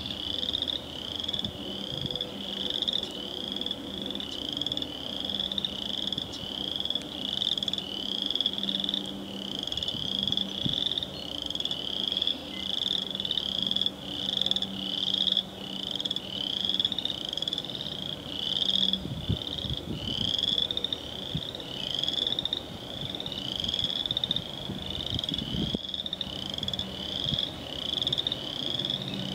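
Spring peepers calling: a steady run of short, high, rising peeps, about one and a half a second. Beneath them runs the low, steady drone of the approaching diesel locomotives.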